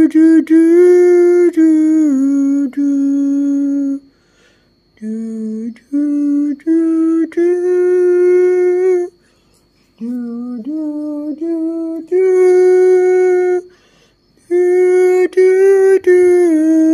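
A person humming a slow, lullaby-like tune in long held notes, phrase after phrase with short pauses between.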